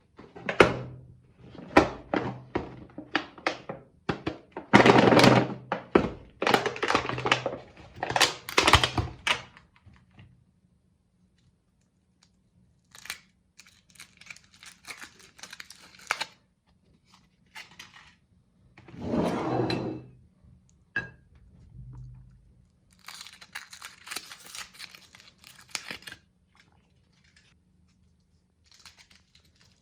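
Meat grinder crunching and tearing through chocolate and its packaging. A dense run of irregular knocks and cracks fills the first ten seconds, followed by quieter crinkling of wrappers. There is one louder crunch about twenty seconds in, and more crinkling after it.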